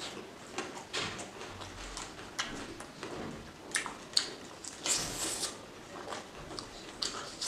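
Close-miked mouth sounds of eating pork and rice by hand: chewing with irregular wet clicks and lip smacks, and one longer, louder smack about five seconds in.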